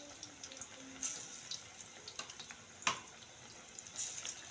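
Hinche-leaf fritters deep-frying in hot oil in a kadai: a steady sizzling hiss, with a few sharp clicks about a second in, near three seconds and at four seconds.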